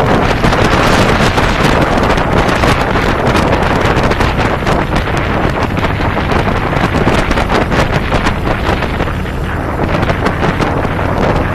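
Heavy wind buffeting on the microphone of a camera riding on a cruiser motorcycle at road speed, with the motorcycle's engine running underneath. The wind eases slightly about nine seconds in.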